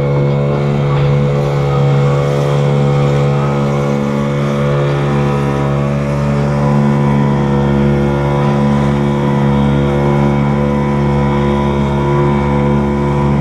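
An engine running steadily at constant speed, its even hum holding without revving up or down.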